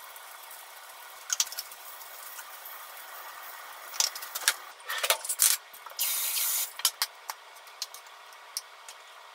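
Hamburg steak patties sizzling in a frying pan, a steady fine hiss. Light clicks of dishes being handled come through at intervals, and a short, louder hissing spurt comes about six seconds in.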